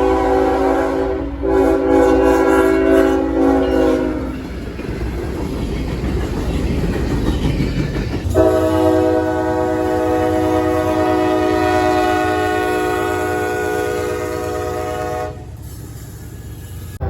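Locomotive air horn sounding a long blast that ends about four seconds in, then the train rumbling and clacking along the rails, then a second long horn blast of about seven seconds that cuts off sharply, leaving the quieter rumble of the passing train.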